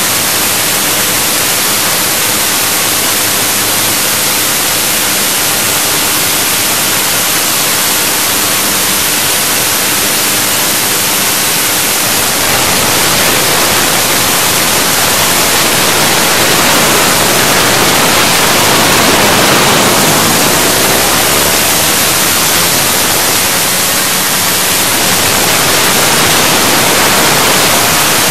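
Heavy wind noise buffeting a handlebar-mounted phone's microphone as a dirt bike rides at road speed, with the bike's steady engine note faint beneath it. The wind noise grows louder about twelve seconds in.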